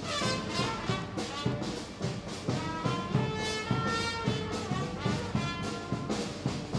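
Brass band playing a tune with horns and a steady drum beat.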